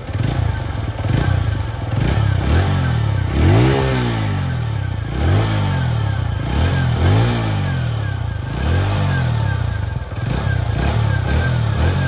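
TVS Sport 110cc single-cylinder four-stroke engine heard at its exhaust silencer, running and blipped on the throttle over and over, about once a second, each rev rising and dropping back. The exhaust note is smooth and not loud.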